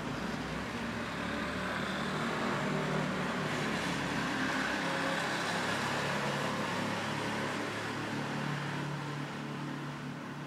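A road vehicle passing: a steady rushing noise over a low hum that swells over the first few seconds and fades near the end.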